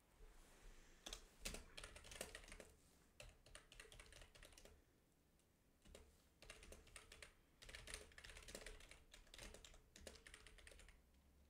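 Computer keyboard typing: faint runs of quick keystrokes, with a pause of about a second around the middle.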